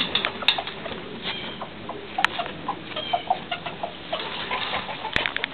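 Backyard chickens clucking and chirping in short, scattered notes, with a few sharp clicks.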